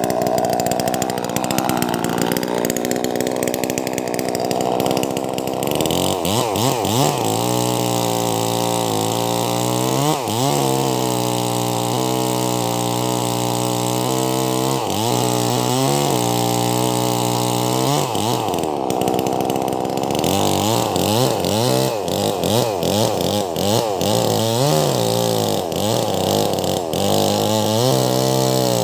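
Two-stroke chainsaw running at full throttle. From about six seconds in its pitch drops lower and wavers up and down, as the chain labours in a large log.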